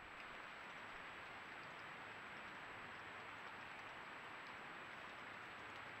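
Steady faint hiss from a trail camera's microphone, with a thin high whine from the camera's electronics.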